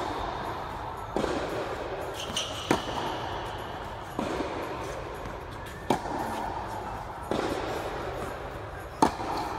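Tennis rally: six sharp pops of the ball off the racket strings and court, about a second and a half apart, each ringing on in the echo of a large indoor tennis hall.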